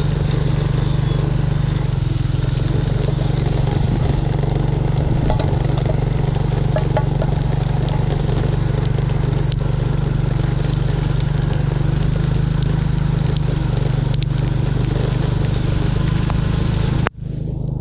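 Small engine running steadily at a constant speed. The sound breaks off for a moment near the end.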